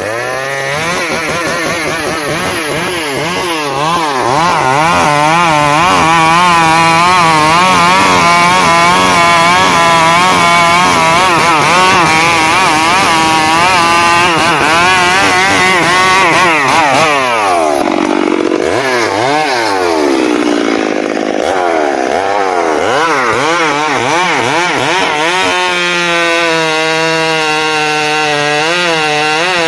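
Chainsaw running at high speed while cutting into a tree, its engine note wavering up and down under load. About two-thirds of the way through the engine speed drops away, then it revs back up to a high, steady pitch.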